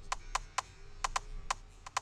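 Irregular sharp clicks from a computer keyboard and mouse being worked, about seven in two seconds.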